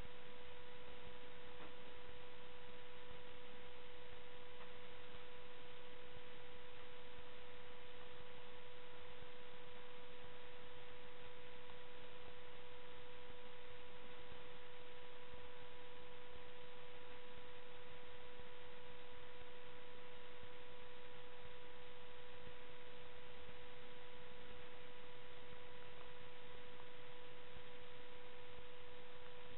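A steady electronic tone held at one pitch over constant hiss, never changing.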